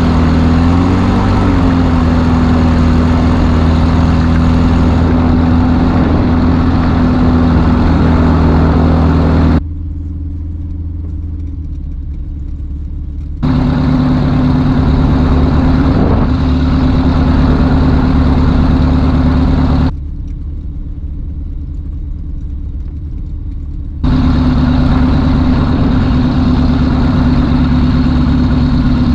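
BushCat light-sport airplane's engine and propeller running at low taxi power, a steady drone with a brief rise in pitch near the start. Twice the sound turns duller and quieter for about four seconds before coming back.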